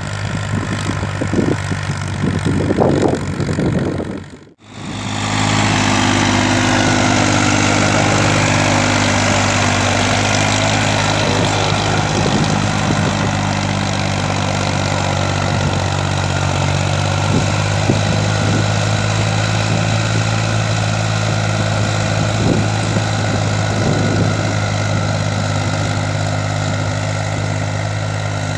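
Ford 3630 tractor engine running steadily under load as it drives a Shaktiman rotavator through the soil. The sound drops out briefly about four and a half seconds in, then the steady engine hum and tilling noise carry on.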